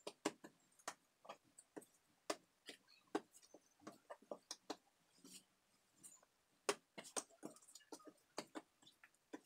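Hands rounding a ball of yeast dough on a floured countertop: faint, irregular soft taps and pats as the palm and fingers press and turn the dough against the counter.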